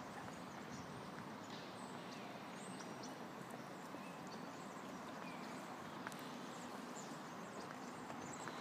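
Footsteps of runners, many quick footfalls over a steady outdoor background noise.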